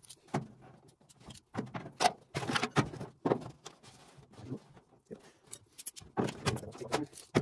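Handling noise: an irregular run of clicks, taps and metallic clinks as locking pliers and tools are worked on the edge of a sheet-steel body panel, with the loudest knocks about two seconds in and near the end.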